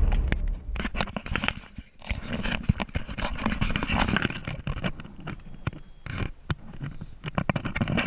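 Irregular rustling, clicks and crackles inside the cabin of a Cirrus SR22 hanging under its CAPS parachute, with no engine or propeller sound: the engine is shut down and the propeller has stopped.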